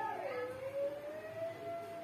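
Siren wailing: one long tone that drops in pitch early on, then slowly rises and holds, right after a run of quick falling yelps.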